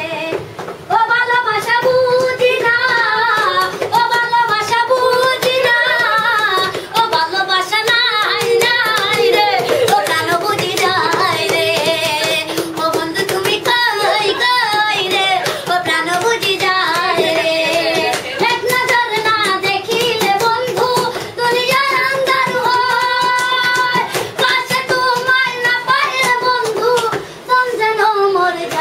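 A child singing a song in a high voice, unaccompanied except for hand claps.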